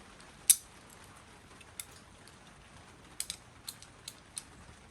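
Small metal clicks and taps of Felco pruner parts being handled and fitted together during reassembly: one sharper click about half a second in, then a scattering of lighter ticks.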